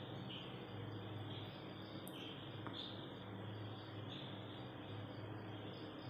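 Gas stove burner lit under an empty wok: a faint steady hiss and low hum, with soft high chirps about once a second.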